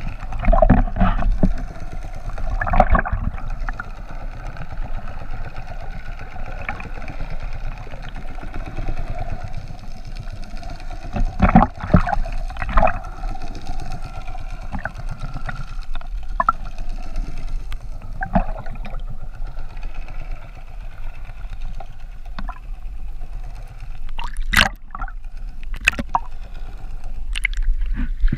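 Underwater sound through a camera's waterproof housing during a freedive: muffled water noise and gurgling over a steady hum, with a few sharp clicks and knocks. Near the end the camera breaks the surface into open-sea water noise.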